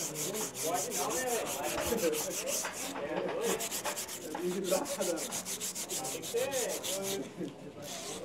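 Bull rope being rubbed hard back and forth to rosin it sticky before a ride: a fast, even rasping of about six strokes a second, with a short break about three seconds in, ending about a second before the close.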